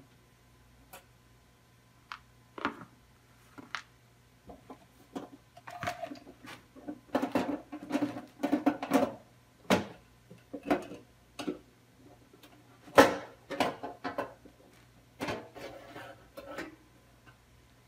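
Sheet-metal case of a Pioneer PDR-555RW CD recorder being handled and taken off: a string of irregular clicks, knocks and scrapes of metal, loudest about thirteen seconds in.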